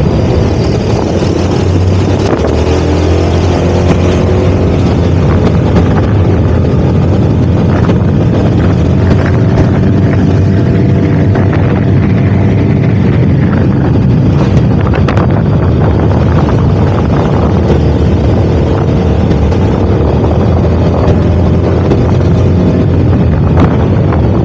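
Loud, steady wind rumble on the microphone, with a faint wavering hum underneath.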